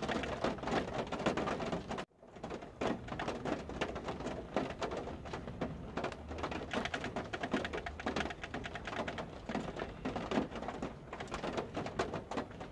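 Rain pattering on the truck's roof and windshield, heard from inside the cab as a dense, even spatter of small drops. The sound drops out for a moment about two seconds in.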